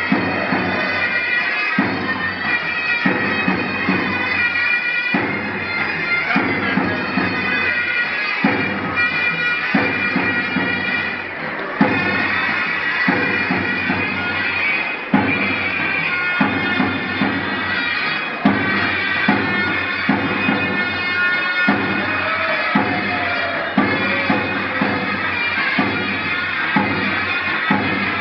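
Turkish folk line-dance (halay) music: a shrill double-reed zurna plays a continuous melody over regular deep davul drum beats.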